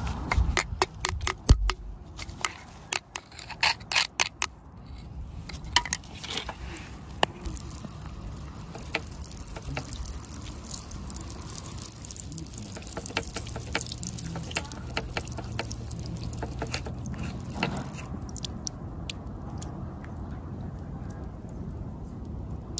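A metal pick scraping and ticking through gravelly soil to free a large amethyst crystal, a quick run of sharp clicks over the first several seconds. Then water sprayed onto the crystal hisses and splashes for about ten seconds, giving way to quieter handling near the end.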